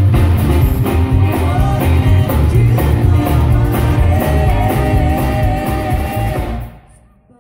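Live rockabilly band playing: upright bass, drums, electric guitar and saxophone under a woman's singing, with a long wavering note held near the end. The music stops suddenly a little before the end.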